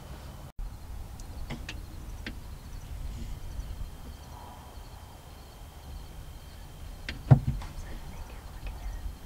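A sharp knock about seven seconds in, over a low steady rumble and a few faint clicks; the sound cuts out for an instant about half a second in.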